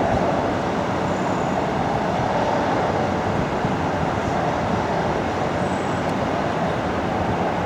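Jet engine noise from a Boeing 757-200 on its landing approach: a steady, even rush of sound with no rise or fall.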